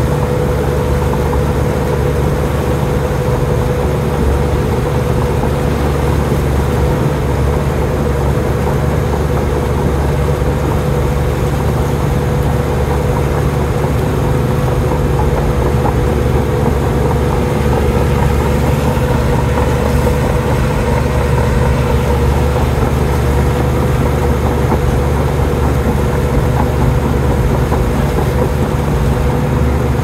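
Komatsu D53P bulldozer's diesel engine running steadily under a constant load, with a steady whine.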